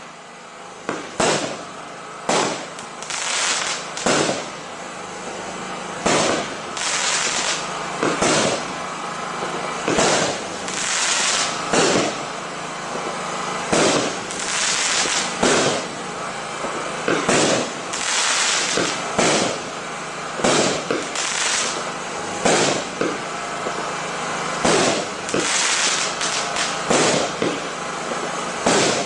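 Ardi Showbox Fascination compound firework cake, a pre-linked multi-shot display lit once, firing a continuous run of shots: sharp bangs about one or two a second over steady crackling.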